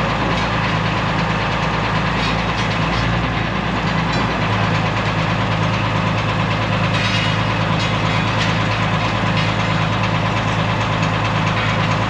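International Harvester 606 tractor engine running steadily at idle, with a fast, even beat; its low note shifts slightly about four seconds in.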